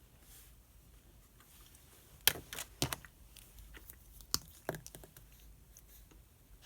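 Paper being handled at a desk, with a few sharp crinkles and clicks of a page being turned about two seconds in and two more a little after four seconds.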